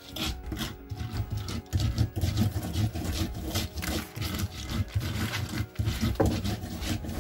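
Wooden or stone pestle (ulekan) grinding a coarse rujak sauce paste in a wide cobek mortar: repeated scraping and knocking strokes in an uneven rhythm.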